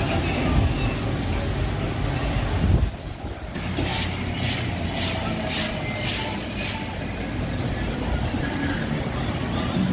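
Street traffic, cars passing, with music in the background. A little past the middle come five short hissing sounds in a row, about half a second apart.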